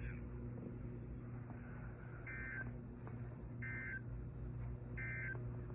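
Three short bursts of Emergency Alert System end-of-message (EOM) data tones, the warbling two-tone SAME digital signal that marks the end of the alert, about a second and a half apart. They sound over a steady low hum.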